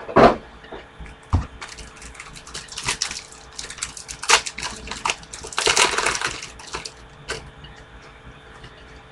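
Baseball card pack wrapper crinkling and tearing as it is opened by hand, in a series of short rustling bursts, the longest about six seconds in.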